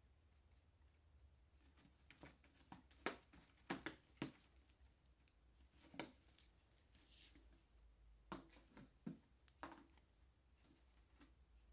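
Mostly quiet room with a few faint scratches and taps, a cluster of them a few seconds in and more later on: a kitten moving about inside a cardboard box.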